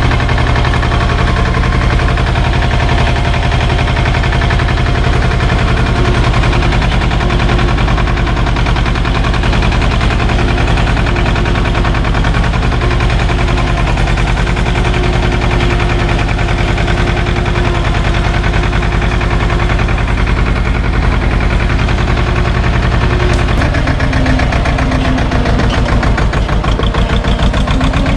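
SAME tractor's diesel engine running steadily as the tractor drives along a rough, muddy track; its note drops a little about three-quarters of the way through.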